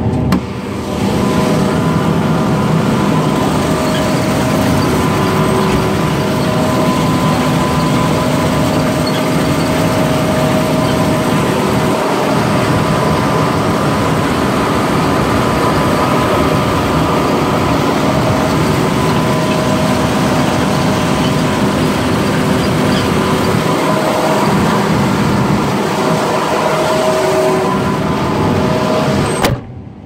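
John Deere combine harvesting soybeans, heard from outside the cab: a loud, steady din of engine, header and threshing machinery with a few steady hums in it. Near the end it cuts off abruptly.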